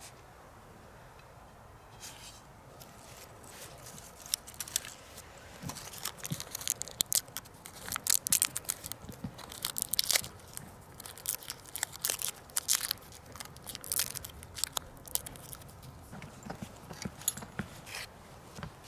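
Hands tearing and crumpling dry bark tinder and snapping small twigs while laying a fire: a run of irregular crackles and snaps, densest in the middle.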